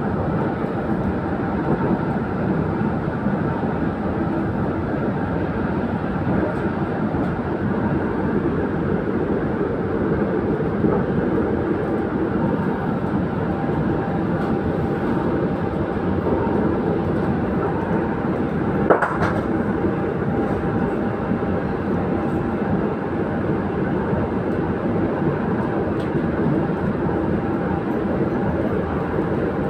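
KTM Komuter electric train running at speed, heard from on board: a steady rumble of wheels on the track. A single sharp click comes about two-thirds of the way through.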